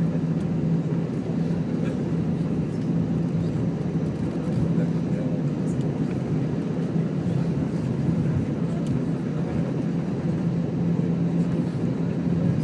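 Cabin noise of an Airbus A319 taxiing: a steady low rumble with a constant hum from the jet engines at low power, heard from inside the cabin.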